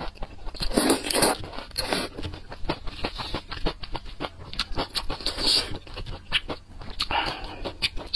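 Close-miked eating: thick noodles in chili sauce being slurped in several longer noisy pulls, between wet, clicky chewing of noodles and celery.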